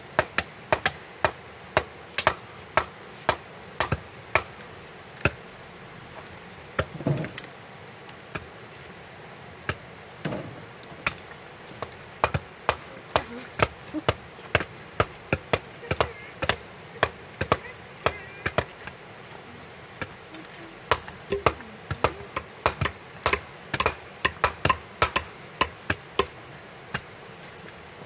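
Axes chopping and splitting firewood: sharp knocks in an uneven run of about two a second.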